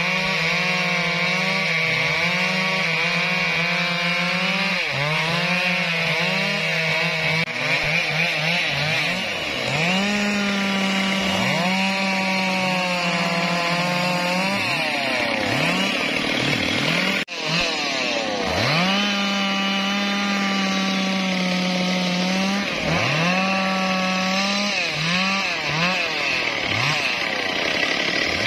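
Stihl two-stroke chainsaw cutting Indian rosewood (sonokeling) logs: the engine runs at full throttle through the cut, then drops to idle and revs back up again and again. A second chainsaw runs alongside near the start.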